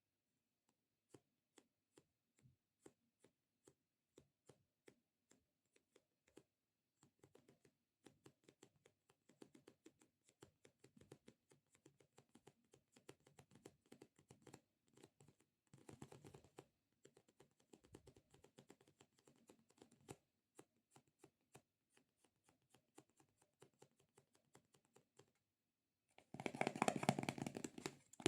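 Fingers tapping and pressing on a sticky squishy stress-relief toy: separate soft taps about twice a second at first, then denser sticky crackling as the surface is pressed and peeled, with a louder stretch of rustling, squishing contact near the end.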